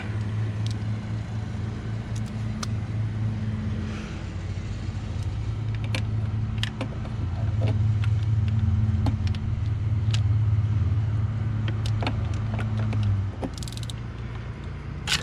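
A steady low motor hum that stops near the end, with scattered light clicks over it.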